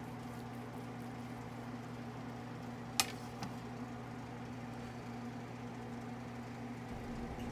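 A chef's knife knocks sharply once against a plastic cutting board about three seconds in, with a fainter knock just after, as it finishes cutting through a bacon-wrapped venison backstrap. A steady low hum runs underneath.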